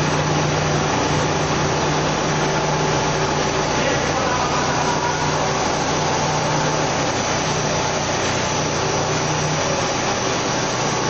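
Kraft paper making machine running: a steady mechanical noise with a constant low hum.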